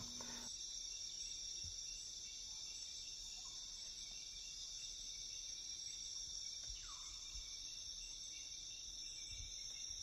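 Amazon rainforest insect chorus: a steady, high-pitched drone of crickets or similar insects. A single short falling whistle cuts in about seven seconds in.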